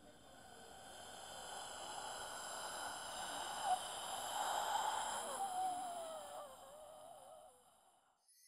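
A woman crying: sighing breaths and a wavering whimper that falls in pitch through the middle. Under it a hiss with a high ringing swells and then fades out near the end.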